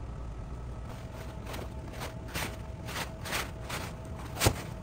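Rustling and scuffing of a deflated, rolled-up inflatable kayak and its fabric carry bag being handled and pushed into the bag, a couple of swishes a second. A single thump comes about four and a half seconds in.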